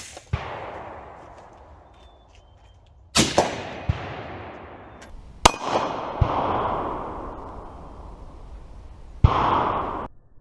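AR-15 rifle with a 20-inch 5.56 barrel firing 68-grain boat-tail hollow-point rounds: four shots a few seconds apart, each with a long echoing tail, and a fainter sharp clank of a bullet hitting the steel target shortly after some of them.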